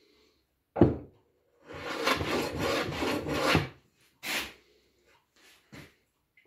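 A Stanley No. 78 rebate plane being handled: a sharp knock about a second in, then about two seconds of dense scraping, and two shorter scrapes after.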